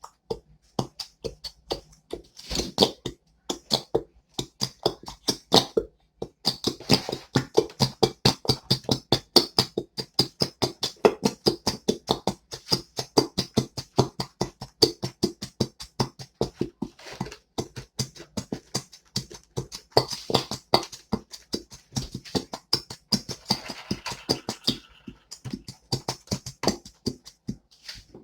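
Slime being squished and kneaded by hand: rapid wet squelches and air pops, several a second, with a short pause near the end.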